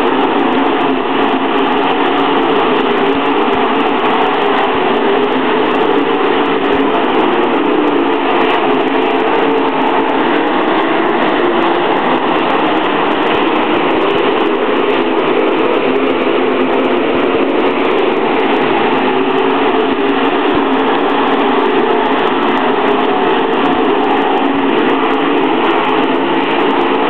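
Dirt late model race cars' V8 engines running at racing speed around the dirt oval. The sound is loud and steady, an unbroken drone in which no single car's rise or fall in pitch stands out.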